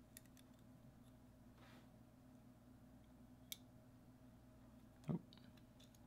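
Near silence over a steady low hum, with a few faint clicks of a metal Spyderco Spyderench multi-tool being handled, the clearest about halfway through, and a brief soft thump about five seconds in.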